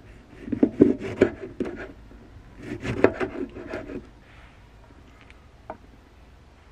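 A chef's knife slicing through a tomato, the blade knocking and scraping on a wooden cutting board in two quick runs of strokes, with a single light click near the end.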